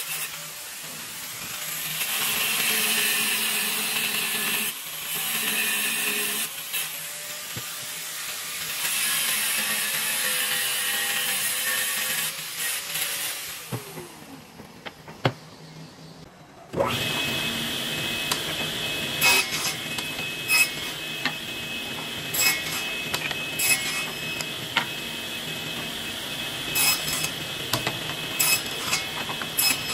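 Angle grinder cutting metal. After a lull of a few seconds, a sliding table saw starts running abruptly about 17 seconds in, with scattered sharp ticks as it cuts a wooden strip.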